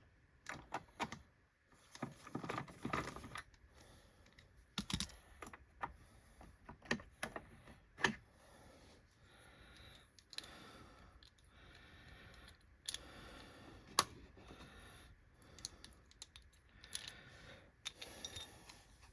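Irregular clicks, taps and light rattles of hard plastic vacuum cleaner parts being handled, with a few seconds of softer scratchy noise in the middle.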